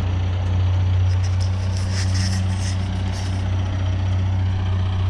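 Can-Am Spyder three-wheeler's engine idling with a steady, even low hum.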